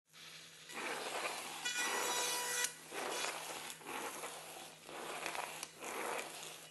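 Small robot car's DC gear motors whirring in short spurts as it drives and turns, with a brief higher whine about two seconds in.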